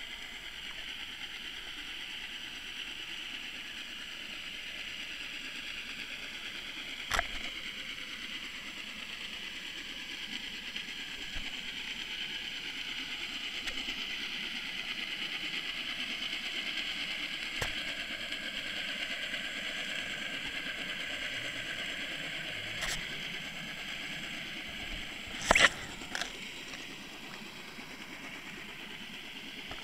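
Underwater sound through a camera housing on a fluke rig dragged along the bottom: a steady watery hiss with a boat motor's drone that slowly wavers in pitch. A few sharp knocks break through, the loudest near the end.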